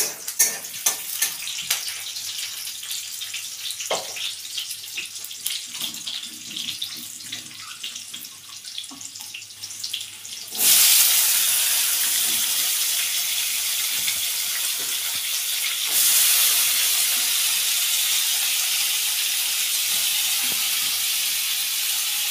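Light clicks and clatter of kitchen utensils, then about ten seconds in a sudden, steady sizzling starts in a steel kadai on the gas burner, the sound of food going into hot oil. The sizzling grows louder again a few seconds later, as if more was added.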